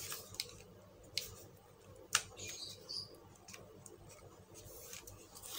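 Scattered small clicks and taps of a laptop hard drive and its screws being handled during a drive swap, with a sharper click about two seconds in.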